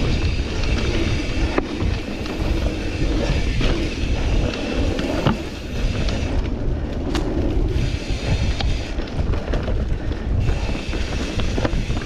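Mountain bike riding noise heard from a camera on the rider: wind buffeting the microphone and the tyres rolling over a dirt singletrack, with sharp knocks and rattles of the bike now and then. Music plays under it.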